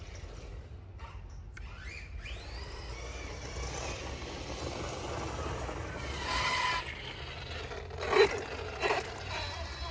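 Brushless electric motor and drivetrain of a 1/6-scale Losi 8ight-X Super Lasernut RC buggy on a 6S battery, whining and rising in pitch as it speeds up, more than once. A sharp knock about eight seconds in is the loudest sound, with a smaller one a second later.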